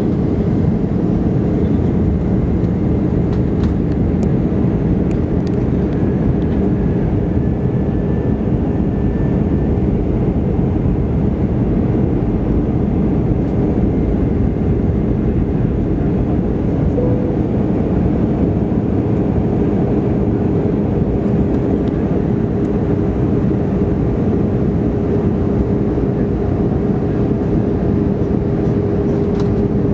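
Airbus A320 cabin noise on approach: the steady roar of the jet engines and rushing air heard from inside the cabin, with a low steady hum that grows plainer in the second half.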